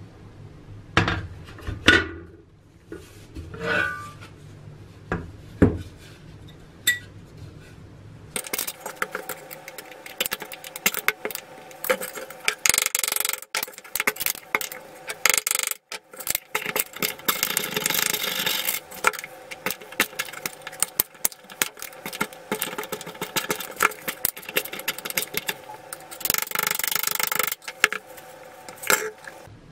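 A few knocks and clinks of a metal tool on the steel shell of an old helmet, some with a short ring, then a long stretch of scratchy scraping with many small clicks as a screwdriver tip scrapes rust from inside the helmet.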